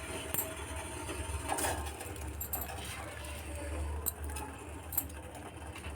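A few faint, short clinks and taps at a cooking pot over a steady low hum.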